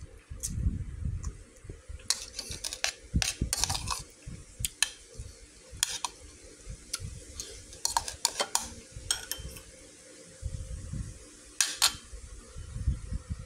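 Metal spoon clinking and scraping against a bowl while scooping rice, a run of irregular sharp clicks with low handling bumps in between.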